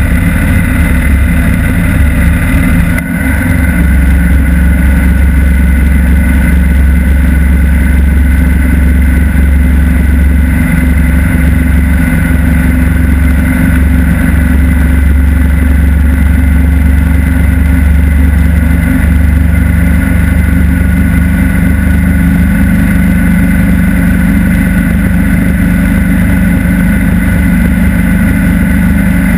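Motorcycle riding at steady highway speed: the engine runs evenly under a loud rush of wind on a low-mounted action camera. There is a brief dip in the noise about three seconds in.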